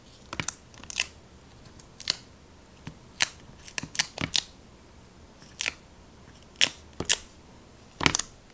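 Blue dust-removal sticker being dabbed onto and lifted off a phone's glass outer screen to pick up dust: a dozen or so short sharp clicks at uneven intervals.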